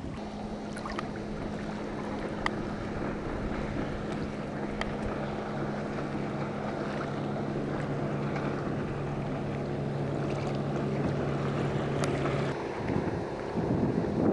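Wind noise on the microphone over open water, with a steady low hum underneath that stops about twelve seconds in. A few faint short clicks sound now and then, and the wind noise swells louder near the end.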